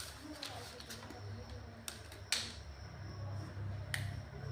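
A few light clicks and taps over a steady low hum.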